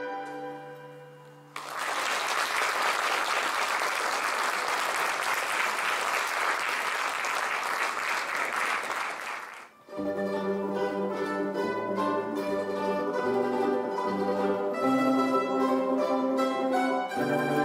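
A mandolin and guitar ensemble lets a final chord die away, then applause for about eight seconds. About ten seconds in, the ensemble starts a new piece with plucked notes.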